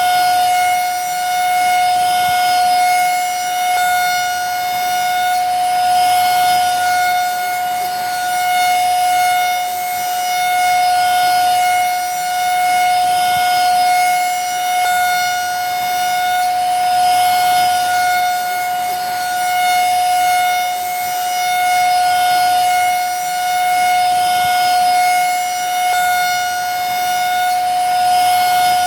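Vacuum cleaner running steadily: a constant high motor whine over a rush of air, swelling gently about every two seconds.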